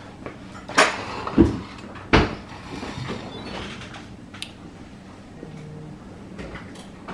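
A few sharp knocks and clunks, three close together in the first couple of seconds, then a few fainter clicks.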